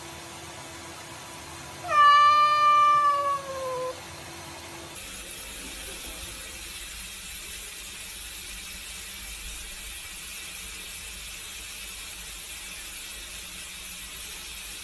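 A cat meows once, a single call about two seconds long that falls in pitch, over the steady hiss of a tap running into a sink. After the meow, the running water goes on alone.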